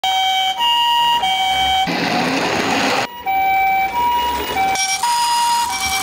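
Toy ambulance's electronic siren playing the Japanese two-tone "pee-po" ambulance call: a high and a low tone alternating about every half second or so. About two seconds in, the siren gives way to a second of hissy noise, then the two-tone call starts again.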